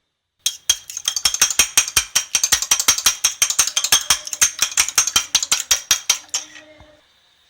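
Eggs being beaten in a bowl with a utensil: a fast, even run of sharp clicking strokes, about seven a second, that tails off and stops near the end.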